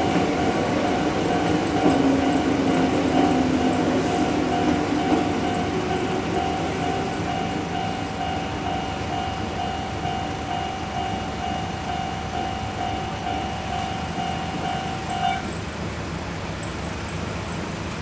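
Japanese level-crossing warning bell ringing in a steady pulsing rhythm while a Hakone Tozan Railway electric train rumbles across and away. The rumble fades over the first several seconds, and the bell stops about fifteen seconds in as the crossing clears.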